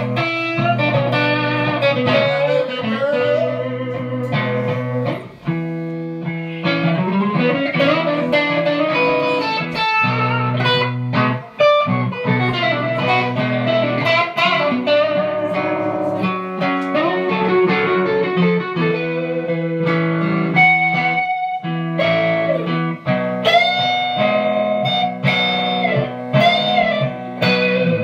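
Electric guitar music: melodic single-note lines played over sustained low notes.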